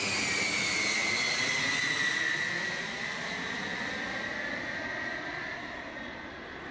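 Jet aircraft engine noise: a steady rush with a high whine that slowly falls in pitch, as of a jet passing.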